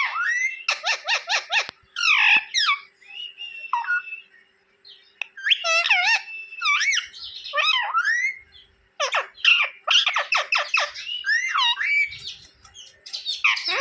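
Pet green parrot chirping and squawking in quick runs of sharp, gliding notes, with short pauses between the bursts.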